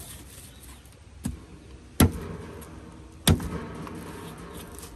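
A machete chopping into a charred roasted pig's head: a light chop about a second in, then two heavy chops a little over a second apart.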